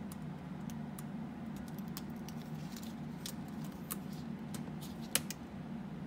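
Light scattered clicks and ticks of a laptop touchpad flex cable and its small connector being handled and pressed into place, with one sharper click about five seconds in. A steady low hum runs underneath.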